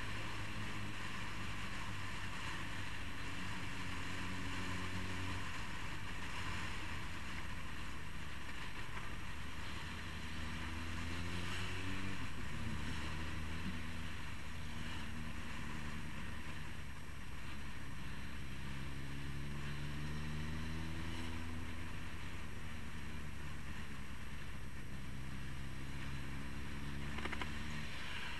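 Motorcycle engine heard from on board while riding, its note rising a few times as the bike accelerates through the gears and dropping back between.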